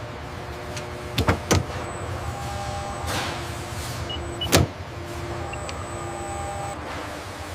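Industrial machinery running with a steady hum and faint whining tones, broken by sharp clacks about a second in, a moment later, and again past the middle.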